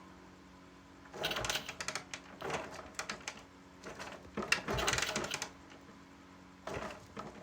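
Clattering, rattling noise in four bursts, the longest about a second and a half, from work on a Honda CD70's ignition wiring while current to the ignition coil is tested.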